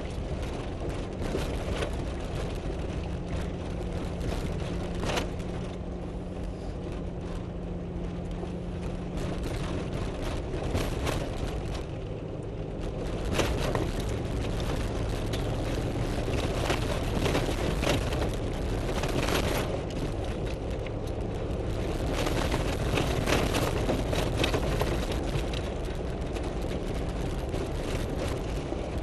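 Four-wheel-drive vehicle driving over a rough dirt trail, heard from inside the cab: the engine runs steadily under tyre and gravel noise, with frequent knocks and rattles as it bumps over rocks.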